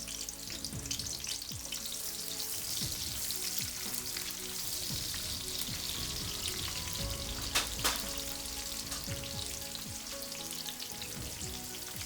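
Sliced onion sizzling as it fries in hot vegetable oil in a pan. Two sharp knocks come about two-thirds of the way through.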